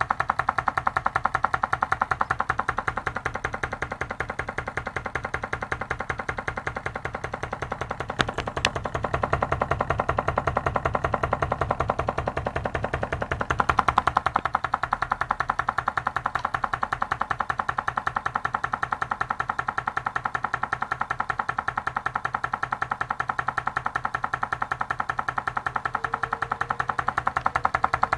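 Homemade candle-powered Stirling engine running, its flywheel and linkage making a rapid, even mechanical ticking that holds a steady pace throughout.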